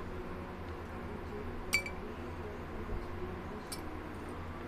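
Two small clinks on glass, about two seconds apart, the first louder, each with a brief ringing tone: small trinkets such as resin skull beads dropped into a glass jar.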